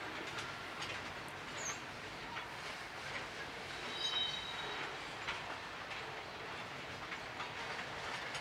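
Freight train's boxcars and tank cars rolling past: a steady rumble with scattered clicks of wheels over rail joints, and a brief high wheel squeal about four seconds in.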